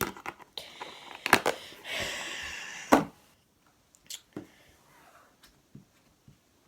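Handling noises: a few sharp clicks, then a scraping rustle that ends in a loud knock about three seconds in, followed by faint small taps.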